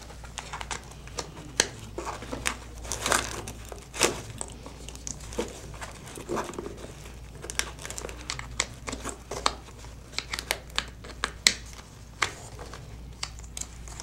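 Cable connectors being handled and plugged into the sockets of a vest-mounted tactical computer, with rustling of the nylon vest fabric and many irregular sharp clicks.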